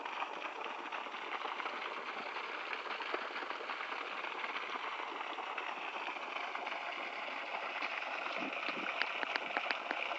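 Steady rush of running water, with a few faint clicks near the end.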